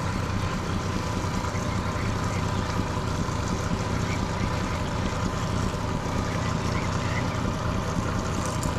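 Boat motor running steadily: a constant low hum with a faint steady whine above it.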